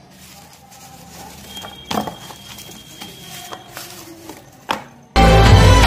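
Pieces of cardboard being handled and slid over a tabletop, with two sharp taps. Loud music starts suddenly near the end and is the loudest sound.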